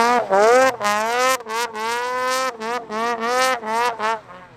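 Snowmobile engine revving in a quick run of short throttle blips, each rising and falling in pitch, over a lower steady engine note.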